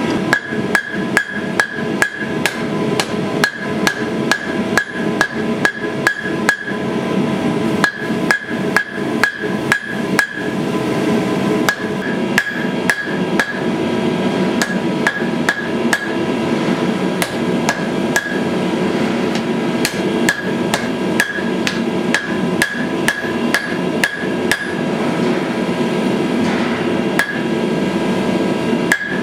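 Blacksmith's hand hammer striking red-hot steel on an anvil, a steady run of about two to three blows a second with a few short pauses. Each blow leaves a ringing anvil tone, over a constant background hum.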